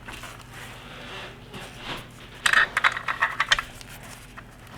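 Small metal rifle parts being handled: a quick run of metallic clicks and rattles about two and a half seconds in, lasting about a second, over faint handling noise, as the bottom screw is fitted to the magazine housing.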